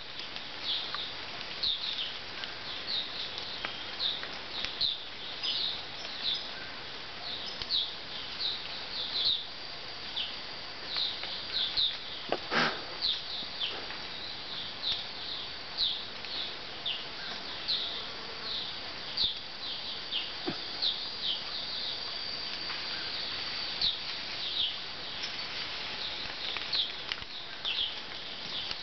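Rainforest animal chorus: many short, high, downward-sliding chirps, one or two a second, over a faint steady high insect hum. One brief louder sound stands out about halfway through.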